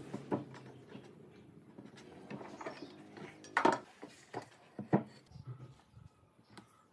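Scattered sharp knocks and taps, as of hard objects being handled and set down, the loudest a double knock about three and a half seconds in and another at five seconds.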